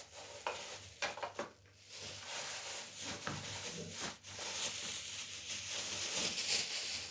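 Plastic bags of vegetables rustling and crinkling as they are handled, a steady papery rustle that grows louder toward the end, with a few light knocks in the first two seconds.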